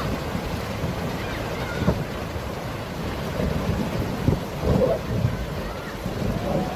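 Low rumble and hiss of a stopped car picked up by its dashcam microphone, with a few dull thumps, the strongest about four to five seconds in.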